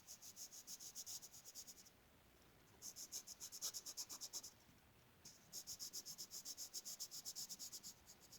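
Coloured pencil shading on paper: three runs of quick back-and-forth scratchy strokes, about eight a second, with short pauses between.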